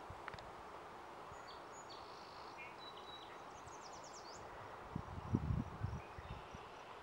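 Outdoor ambience: a steady hiss with a few faint, short, high chirps, and a cluster of low bumps about five seconds in.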